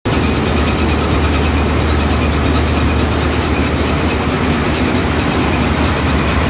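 Ship's engine-room machinery running: loud, steady diesel-engine noise with a deep hum and a constant hiss.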